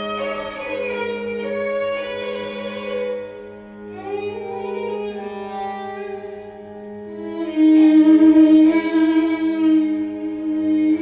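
Slow music of bowed strings: long held notes that slide slowly from pitch to pitch over a steady low drone. It gets suddenly louder about three-quarters of the way through.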